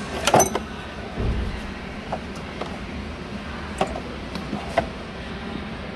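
Metal hand tools clinking in a toolbox drawer: a quick cluster of clinks at the start, a dull thump about a second in, then a few single clinks.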